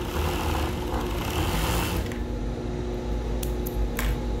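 Siruba industrial sewing machine stitching elastic onto swimsuit fabric in a run of about two seconds, then stopping, with its motor humming steadily throughout. A few short clicks follow near the end.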